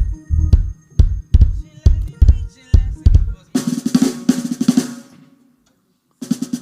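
Drum kit being sound-checked: a run of about eight heavy low drum hits in the first three seconds or so, then a fast snare roll. After a short pause, another roll starts near the end.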